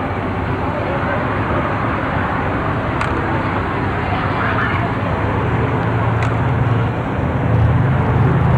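Chevrolet 1500 pickup truck's engine running at low speed as it tows a parade float past, over steady street noise; the low rumble grows louder near the end.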